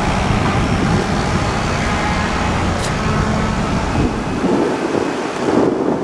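A heavy fire engine's diesel engine rumbles as it pulls away through city traffic, over street traffic noise. The deep rumble drops off about three-quarters of the way through.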